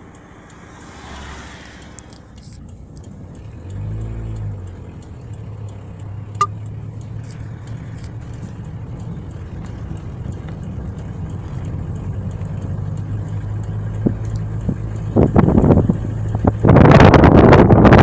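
A car engine's steady low hum, slowly growing louder as the car moves off, with loud wind buffeting on the microphone in the last few seconds.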